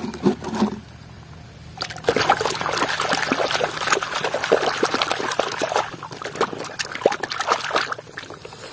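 A toy school bus being swished and scrubbed by hand in a basin of muddy water: fast, irregular splashing and sloshing, starting about two seconds in and easing near the end. Just before it, a brief clatter of muddy plastic toys being picked from a basket.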